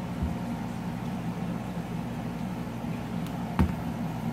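Battery-powered aquarium air pump's small motor humming steadily. A sharp knock about three and a half seconds in as the airline is swapped between pumps.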